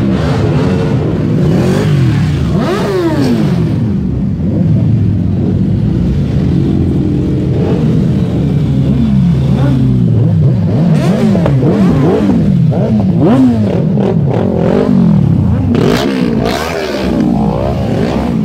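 Several sport motorcycles revving as they roll slowly past one after another, the throttle blipped over and over so the engine note repeatedly rises and falls.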